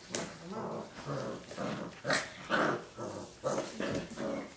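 A young puppy growling and yapping in rough play, in a rapid string of short, irregular growls and yips, two or three a second.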